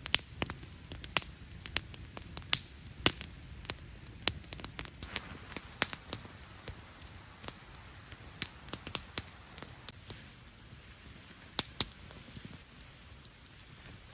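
Campfire crackling: irregular sharp pops and snaps, some much louder than others, over a low steady rush.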